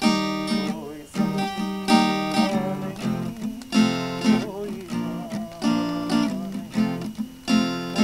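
Acoustic guitar strummed in chords, with a man singing along.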